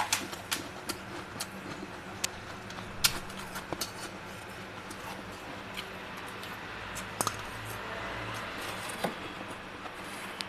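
Crisp, scattered crunches and clicks of freezer frost, irregular and sharp, over a steady low hum.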